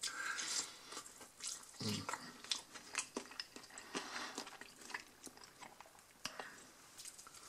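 A person chewing a mouthful of crisp-coated fried chicken wing: a steady run of small wet clicks and soft crunches.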